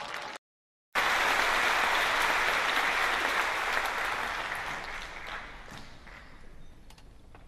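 Audience applause, starting after a brief dropout about half a second in and fading away over the last few seconds.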